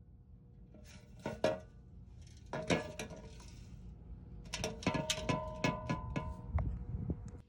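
Metallic clinks and knocks in quick clusters, busiest in the second half, over soft background music.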